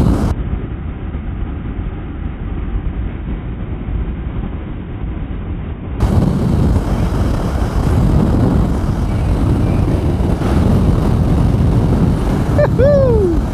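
Honda VFR800 V4 motorcycles cruising at motorway speed: steady engine drone, tyre roar and wind rush picked up by a bike-mounted camera, muffled for the first six seconds and brighter after. A short falling cry near the end.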